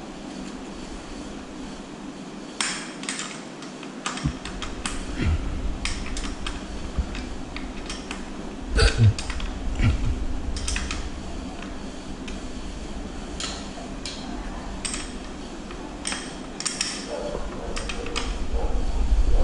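Small metal hand tool clinking and tapping against a mountain bike's front fork and hub: scattered irregular clicks and taps.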